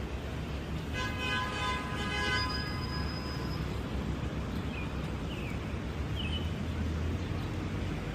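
Steady low rumble of city traffic, with a brief pitched tone sounding for about a second and a half near the start and a few short chirps later.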